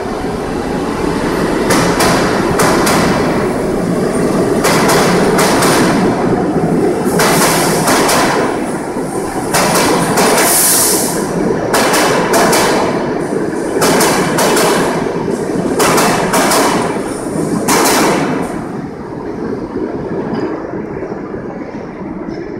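New York City Subway R46 train departing the station past the platform, its steel wheels clacking over rail joints in pairs about every two seconds as each truck rolls past, over a steady rumble. A brief high hiss comes about ten seconds in, and the rumble drops off about eighteen seconds in as the last car leaves.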